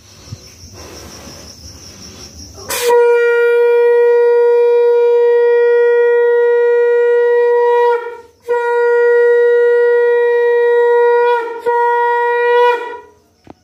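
Conch shell (shankha) blown during a Hindu home puja: a steady, loud, reedy horn tone held in two long blasts with a short break between them, the first about five seconds and the second about four.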